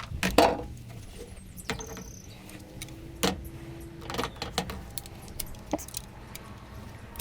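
Irregular sharp clicks and small metallic clinks of pliers and brass plug pins being pulled out of hot-water-softened rubber plug ends.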